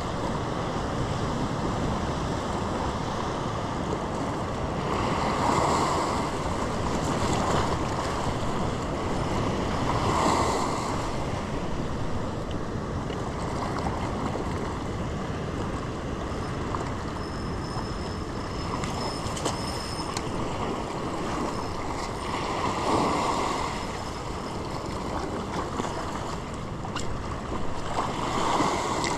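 Sea surf washing against a rock ledge: a steady wash of water with several louder surges as waves break.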